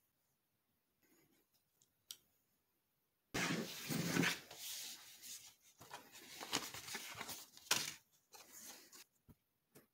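Stiff card pattern pieces rustling and sliding across a cutting mat as they are handled, with a few knocks and one sharp click. The sound starts suddenly about a third of the way in and runs unevenly until near the end.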